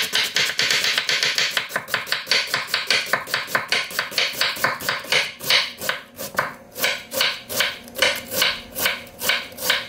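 Chef's knife thinly slicing half a red cabbage on a wooden cutting board: a steady run of quick cutting strokes, several a second.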